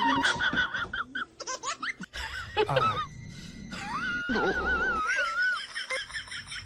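A person laughing in short high-pitched bursts, then one long wavering high call near the middle.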